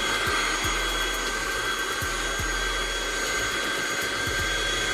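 Small vacuum cleaner running steadily, a rush of air with a high whine on top, sucking dust out of the TV's lamp compartment.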